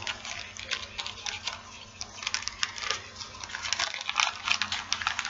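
Small plastic baggies of nail art being handled, making a quick run of light crinkles and clicks.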